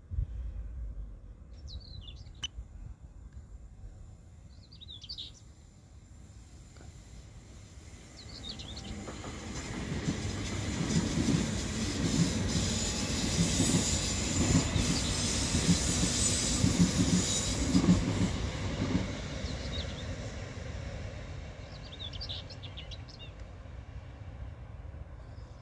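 Electric multiple-unit passenger train passing on the rails. Its wheel-and-rail noise builds up about eight seconds in, is loudest in the middle and fades away near the end. Birds chirp briefly near the start and near the end.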